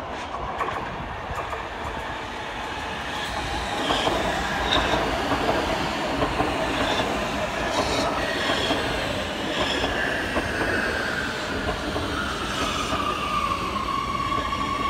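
Oslo Metro MX3000 train approaching and running past, its wheels clicking over the rail joints. Its electric whine falls in pitch from about ten seconds in, then holds steady.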